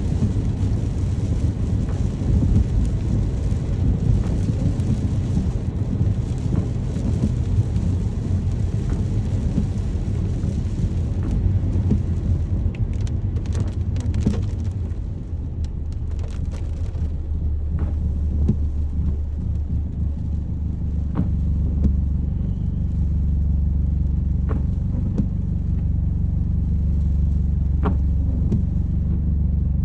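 Rain falling with a low rumble under it. About halfway through, the rain hiss thins out and a steady low rumble carries on, with scattered drips or ticks.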